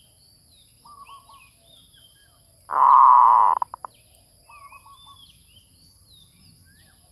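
Zebra dove (merbuk) cooing in short staccato phrases, with a much louder rough burst lasting about a second in the middle that cuts off sharply. Other small birds chirp in the background over a steady high insect drone.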